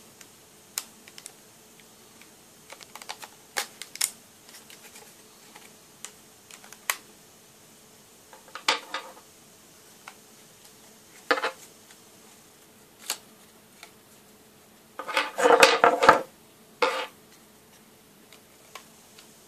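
Plastic clicks and snaps as a small screwdriver pries apart a Ford Fiesta Mk6 dashboard air vent, its trim ring and inner vent being levered off the housing. A louder run of cracking snaps comes about three-quarters of the way through, as the housing comes apart.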